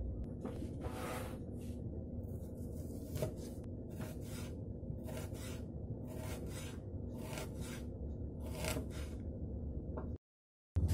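Kitchen knife slicing an onion on a wooden cutting board: a steady run of cuts, roughly two a second, over a low steady hum. The sound cuts out for about half a second near the end.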